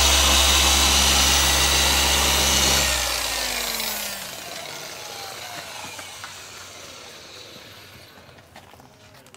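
Handheld polisher with a foam pad running steadily against a headlamp lens, polishing out the haze left by wet-sanding. About three seconds in it is switched off and winds down, its pitch falling as it slows and fades.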